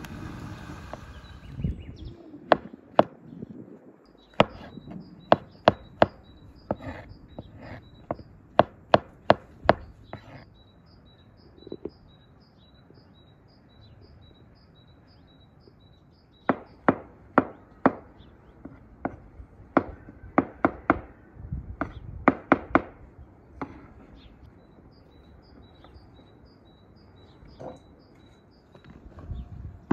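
A wood fire crackles briefly at the start. Then a knife chops on a wooden cutting board in runs of quick, sharp strokes, with a pause of several seconds between the runs. Throughout, a high chirp repeats about three times a second.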